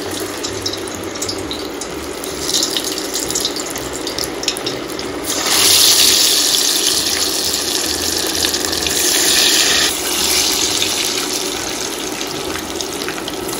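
Batter-coated cauliflower florets sizzling as they deep-fry in a pot of hot oil. The sizzle grows louder about five and a half seconds in and eases back about ten seconds in.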